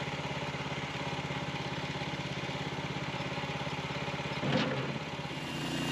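Small engine of a portable band sawmill idling steadily between cuts. About four and a half seconds in there is a brief wooden knock and clatter as a sawn beech board is set down on a tractor bucket.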